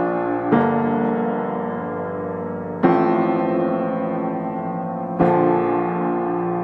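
Background piano music: slow, sustained chords, a new chord struck three times, about every two and a half seconds, each left to ring and fade.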